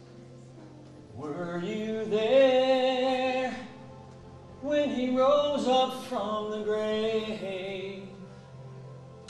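Music: a male voice singing two long wordless phrases over a steady low drone. The first phrase begins about a second in, the second about halfway through.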